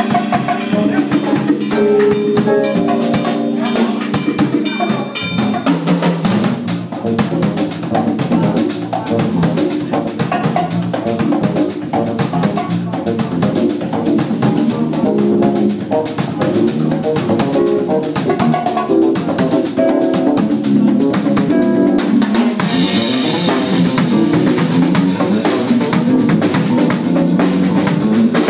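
Live jazz combo playing, the drum kit prominent with busy strokes over bass, piano and saxophone.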